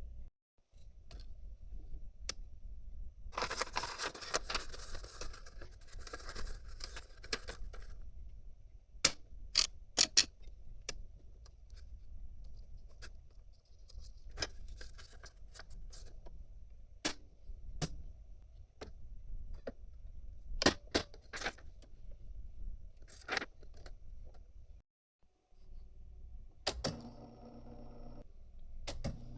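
IBM Selectric III electric typewriter with its motor humming steadily, and scattered sharp mechanical clacks, some in quick pairs or threes. A few seconds of scraping and rustling come near the start.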